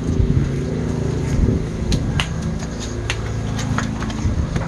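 A steady low mechanical hum with a few sharp clicks and knocks scattered through it, as a phone is handled and carried.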